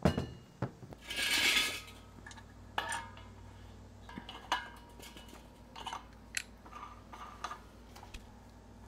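Metal clinks and clicks as torch fittings, a propane tank valve and regulator hose connections are handled, with a short burst of hiss about a second in.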